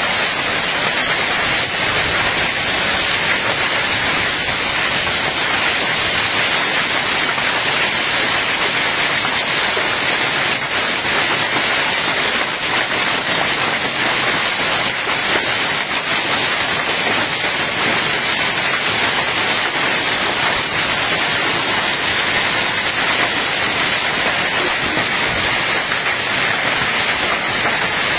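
Heavy rain pouring down steadily: a dense, even hiss that keeps the same strength throughout.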